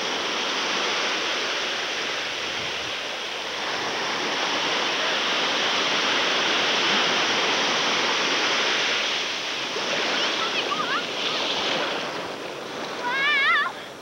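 Steady, gently swelling wash of low surf in the shallows. Brief high-pitched wavering calls come in near the end.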